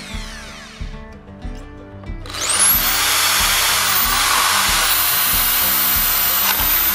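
Cordless drill with a tile bit, in plain drilling mode without hammer: its motor winds down at the start, then about two seconds in spins up again and grinds steadily into a ceramic tile, winding down near the end. Background music with a steady beat runs underneath.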